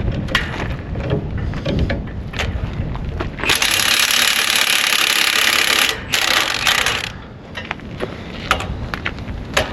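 Metal clanks and knocks, then about three and a half seconds in a loud, even hiss of escaping gas or air that lasts a couple of seconds, stops briefly and hisses again for about a second.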